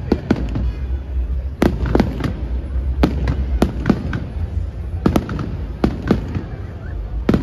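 Aerial fireworks shells bursting: a run of sharp bangs at irregular intervals, about two a second, over a steady low rumble.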